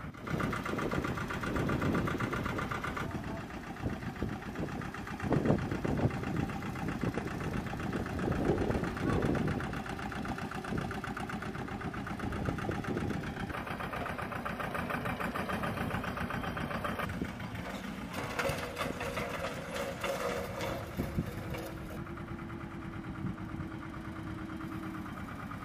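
Ground-support vehicle engine idling with a fast, even pulse. The sound changes abruptly several times as the shots are cut together, and a faint steady hum comes in near the end.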